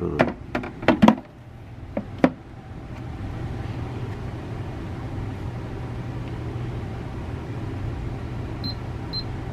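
A few sharp clicks, then the LCDJSQ-J19 humidifier runs with a steady low hum. Near the end it starts beeping, short high beeps about twice a second: the warning it gives before it shuts itself off, the fault that stopped it working.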